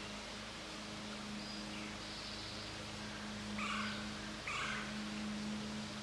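An animal calls twice, short calls about a second apart past the middle. Under them runs a steady low hum and hiss.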